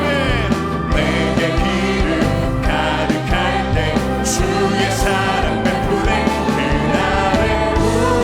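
Church worship band and singers performing a contemporary worship song: voices over a steady bass with cymbal and drum hits.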